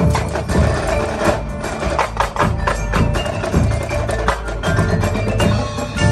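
High school marching band playing live, with drum and mallet-percussion hits standing out over sustained band chords.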